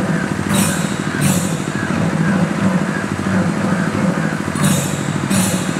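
Drums played in a fast, steady rhythm to accompany a Tharu sakhiya dance. Two pairs of bright, hissing crashes ring out over them, one pair about half a second to a second in and another near the end.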